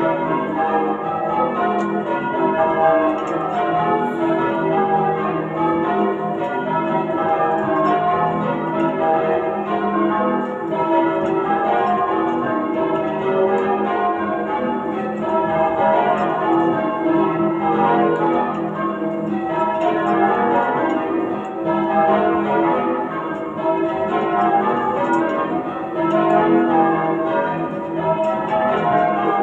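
Change ringing on a ring of eight church bells tuned to E, with a 19 cwt tenor and bells cast by Thomas Bilbie and by Llewellins & James. The bells strike one after another in a steady, unbroken stream of overlapping strokes.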